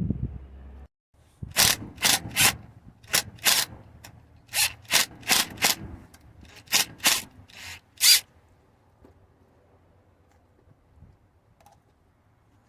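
A hand tool working on a metal power steering line clamp: about a dozen short, sharp scraping strokes in irregular groups of two or three, stopping after several seconds. A low thump comes right at the start.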